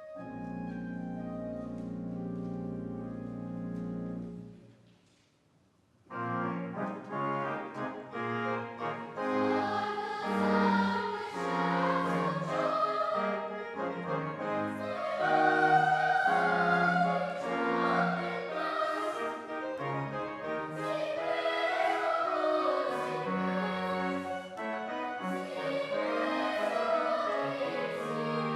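A held instrumental chord fades away about five seconds in. After a brief pause, a children's choir begins singing with instrumental accompaniment.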